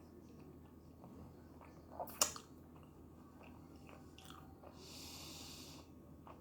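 Close-up chewing of tteokbokki rice cakes, with small wet mouth clicks and one sharp click about two seconds in. A soft hiss lasting about a second follows near the end.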